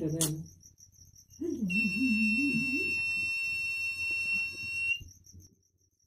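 Small DC buzzer of a C945-transistor fire alarm circuit sounding a steady high-pitched tone, set off by a match flame at its photodiode sensor. It sounds briefly at the start, comes back about a second and a half in, and cuts off sharply about five seconds in.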